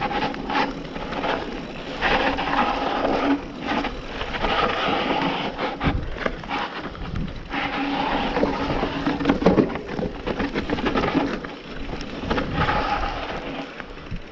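Mountain bike rolling slowly down a dirt trail: tyres grinding over dirt and leaf litter, with frequent knocks and rattles from the bike. A steady whine comes and goes several times.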